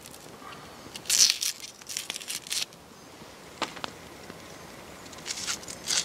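Dry onion skin crinkling and tearing as it is peeled off with a knife, in two spells of rustling, the louder one about a second in. Sharp pops from a small wood campfire crackle in between.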